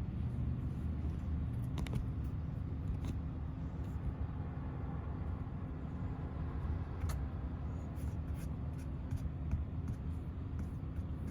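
A car's steady low rumble with a constant hum, broken by a few light clicks.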